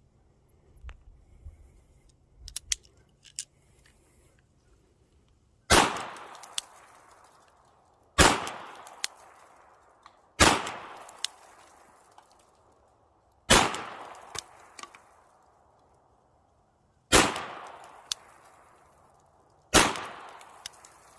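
M1895 Nagant revolver, chambered in 7.62×38mmR, firing six shots spaced about two to three and a half seconds apart. Each shot is a sharp crack with a long echoing tail. A few light clicks come before the first shot.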